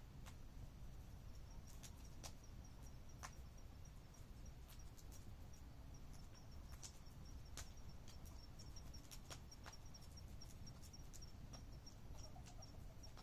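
Faint campfire crackling, with sparse, irregular pops, and an insect chirping in a high, even pulse several times a second that starts about a second in.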